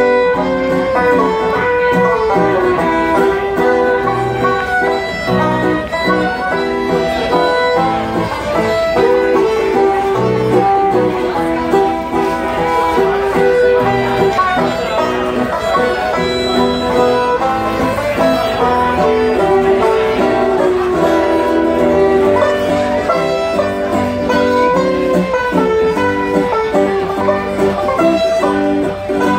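Live fiddle, banjo and acoustic guitar trio playing a Ukrainian folk tune, the fiddle bowing over plucked banjo and strummed guitar.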